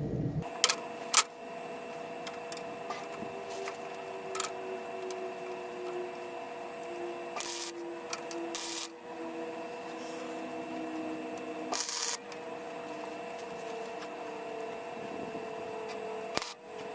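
Metalworking on a steel cart frame, welding and grinding: a steady machine whine with a lower tone that slowly drifts down, broken by several short bursts of hiss and sharp clicks.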